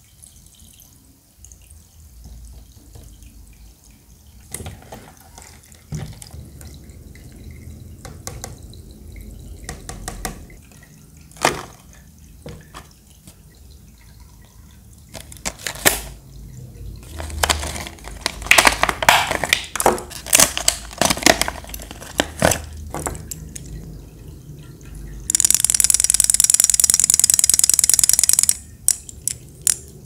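Desktop aquarium's small pump trickling water from its faucet spout into the tank. Later comes a stretch of crinkling and clicking plastic blister packaging being handled. Near the end a loud steady hissing noise runs for about three seconds.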